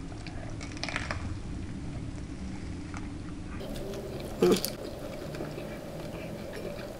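Close-miked chewing of a smoked hot link sausage, soft wet mouth sounds throughout. A brief louder smack or hum of the mouth comes about four and a half seconds in.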